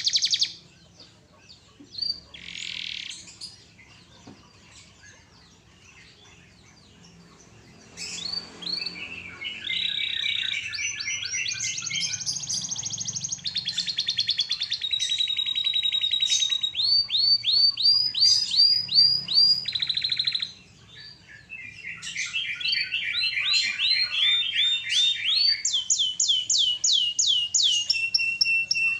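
Domestic canary in full song: long rolling trills of rapid repeated notes, each run at a different pitch, switching every second or two. The song starts about eight seconds in after a short burst near the start, breaks off briefly past the middle, then resumes.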